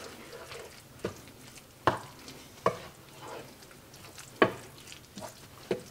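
A wooden spoon stirring thick ground-meat chili in a ceramic-coated skillet, working seasoning powders into the meat. About six short knocks sound at irregular intervals as the spoon strikes the pan.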